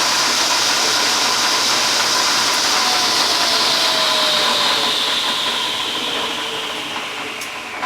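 Table saw running with a steady high whine, then switched off and winding down, its pitch and loudness falling over the last few seconds. A sharp knock comes right at the end.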